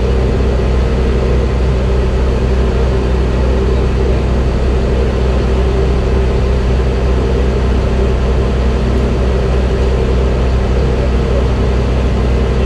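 Heavy tow truck's diesel engine running steadily, with an even low hum that does not change in pitch.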